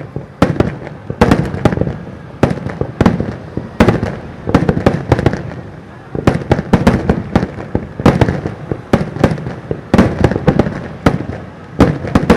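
Japanese starmine fireworks barrage: aerial shells bursting in rapid succession, several booms and cracks a second with no let-up.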